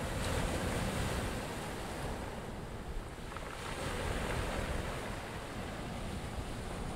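Small waves washing onto a stony beach, with wind gusting over the microphone.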